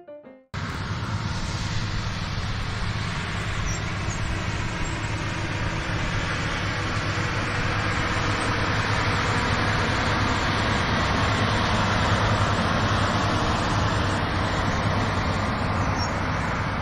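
A motor vehicle's engine running steadily under a constant rushing noise, cutting in suddenly about half a second in.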